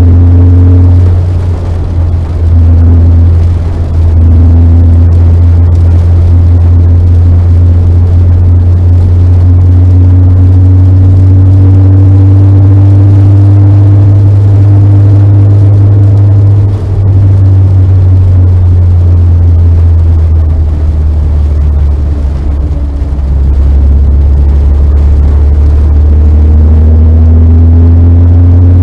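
A car engine heard loud from on board, pulling hard with its pitch climbing slowly through a long stretch in one gear. About 17 seconds in there is a brief drop, like a gear change, and near the end it climbs again.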